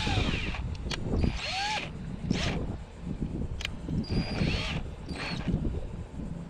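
Yellow cordless drill's motor run in a few short bursts, its whine rising and falling in pitch each time, with a couple of sharp clicks between. The keyless chuck is held by hand while the motor turns, tightening a bit in the chuck.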